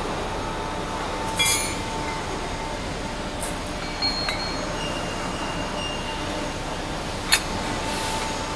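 Steel slitter blades and spacer rings clinking against the arbor shaft as they are slid on by hand: three short metallic clinks, the middle one ringing briefly, over a steady background hum.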